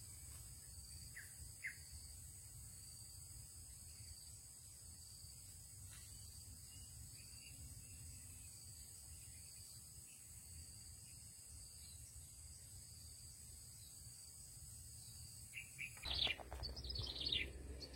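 Faint outdoor ambience: insects droning steadily at a high pitch over a low rumble, with a few short bird chirps. Near the end, louder bird chirps come in with some sharp clicks.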